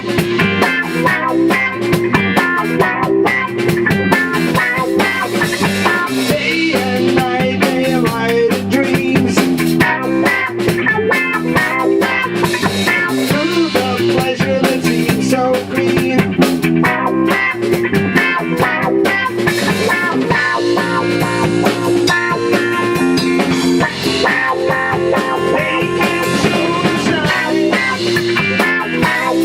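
Rock band playing a song: electric guitar over a drum kit, a steady full-band groove.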